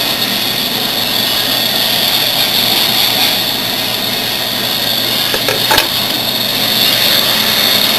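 Triple-axis CNC router running steadily with a constant high whine, and one light knock a little before six seconds in.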